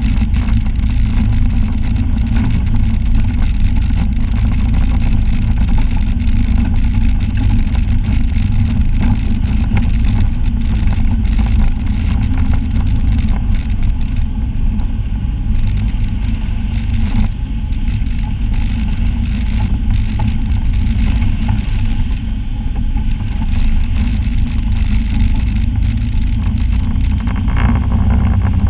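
Side-by-side UTV's engine running steadily as it drives along a rough, muddy trail, with frequent clicks and rattles throughout.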